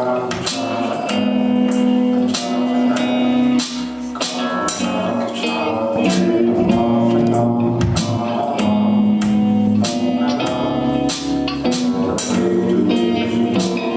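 Band music: guitar over bass and drums with a steady beat, with some tambourine.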